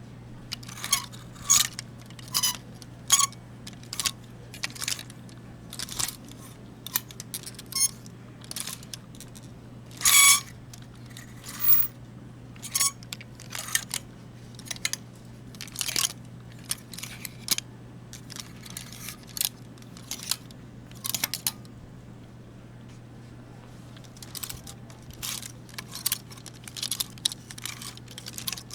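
Metal clothes hangers scraping and screeching along a metal clothing-rack rail as the clothes are pushed along and sorted, in short irregular scrapes about once or twice a second, with a longer, louder screech about ten seconds in. A low steady hum lies underneath.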